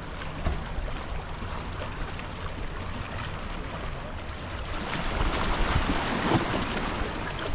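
Wind buffeting the microphone over the wash of waves against a rock jetty, the surf swelling louder about five seconds in.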